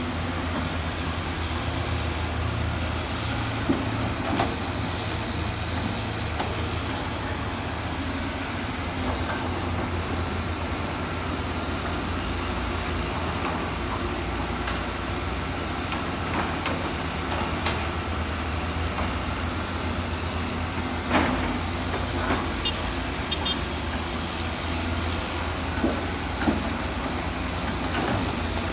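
A heavy diesel engine running steadily, with a few short knocks or clanks, the loudest about 21 seconds in.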